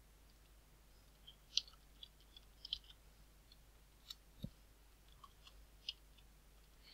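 Faint computer keyboard keystrokes: a few scattered clicks a second or so apart, with one duller knock about four and a half seconds in.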